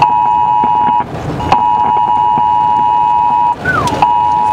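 Loud, steady, single-pitched electronic alert tone, broken twice by half-second gaps, over rain and wind noise.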